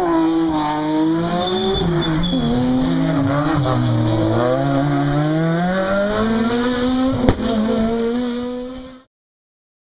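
Rally car engines revving hard out of a tarmac hairpin: the note drops, then climbs steadily as a car accelerates away, with one sharp crack about seven seconds in. The sound cuts off abruptly after about nine seconds.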